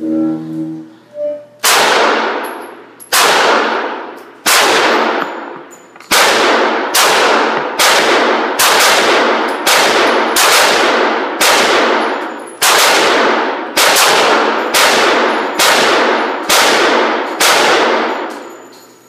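Springfield XD 9mm pistol firing a string of about seventeen shots, each ringing out in the enclosed range. The first few shots come about a second and a half apart, then the pace quickens to a shot a little under every second.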